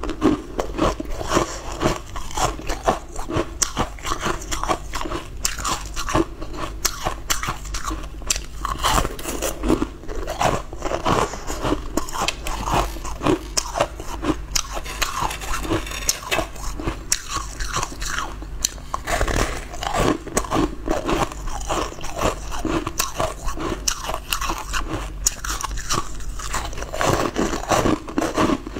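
Close-miked crunching and chewing of frozen ice pops: a dense run of crackly bites into hard ice throughout.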